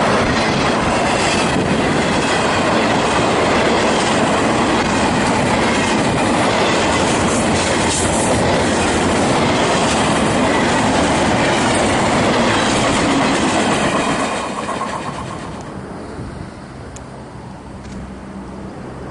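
Container freight train rolling past close by: steady wheel-on-rail roar with clickety-clack as the cars cross the rail joints. About fourteen seconds in it fades to a much quieter low sound.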